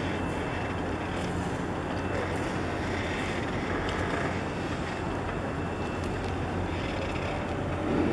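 Steady wind noise on the microphone over a constant low hum, with a brief swell right at the end.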